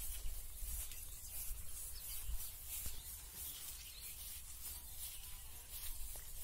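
Rustling and brushing of grass and rice plants as people walk barefoot along a paddy-field path, with a low rumble of wind on the microphone.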